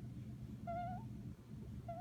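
Newborn baby's squeaky snoring noises in sleep: a short high squeak that rises at its end, about two-thirds of a second in, and a brief one near the end, over a faint steady low hum.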